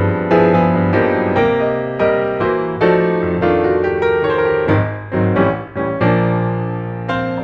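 Background piano music: notes and chords struck at a steady pace of about two a second.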